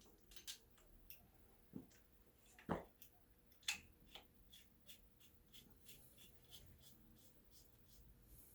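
Near silence broken by faint clicks and knocks of flush-kit hoses and fittings being handled. The two loudest knocks come about three and four seconds in, followed by a string of small ticks.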